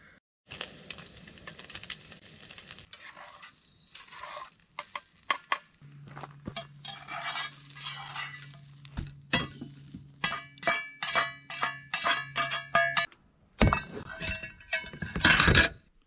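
Metal utensils and cookware clinking and scraping against an enamelware plate and a skillet, with a quick run of ringing clinks in the second half. A steady low hum runs through the middle.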